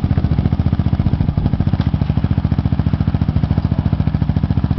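Yamaha Raptor 700 quad's single-cylinder four-stroke engine idling steadily, with an even pulsing beat and no revving.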